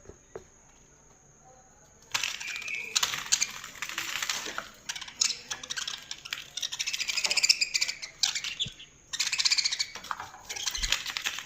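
Budgerigars chattering and warbling: a dense run of fast, scratchy high chirps and clicks that starts about two seconds in, breaks off briefly around nine seconds, then resumes.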